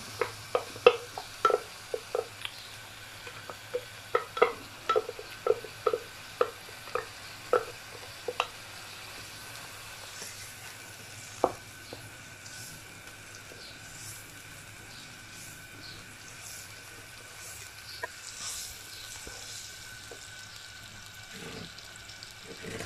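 Wooden spatula tapping and scraping masala paste out of a glass bowl, about two sharp taps a second for the first eight seconds, then the wet paste sizzling softly in hot oil in a wok as it is stirred.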